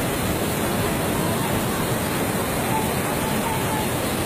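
Flash-flood water rushing down a street as a muddy torrent, with heavy rain: a steady, unbroken rush of water.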